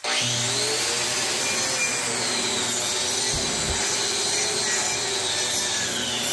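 Angle grinder with a diamond grinding cup and a vacuum dust shroud, grinding down a hump in a concrete slab floor. The grinding runs steadily, its pitch wavering slightly as the cup bites.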